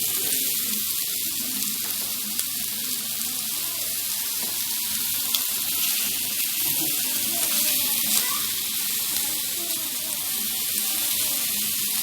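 Skewered kofta sizzling on a very hot stovetop grill pan: a steady hiss with scattered small pops.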